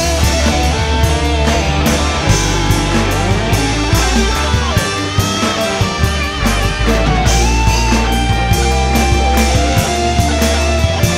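Rock band playing an instrumental passage on electric guitars, bass guitar and drum kit, with a lead guitar line bending in pitch over steady bass and drums.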